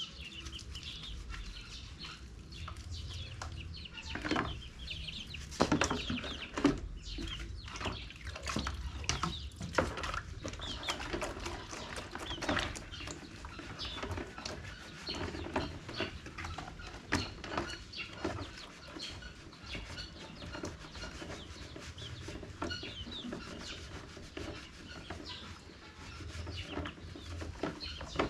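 A flock of chickens clucking and calling, with many short knocks and clicks scattered through.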